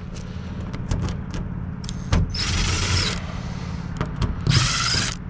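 A power driver running in two short bursts of about a second each, backing sheet-metal screws out of the AC unit's panels. Scattered clicks and a steady low hum run under it.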